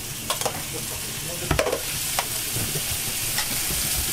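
Cabbage and other vegetables sizzling as they are stir-fried in a steel pan, the sizzle slowly growing louder. A few sharp clinks of the cooking utensil against the pan.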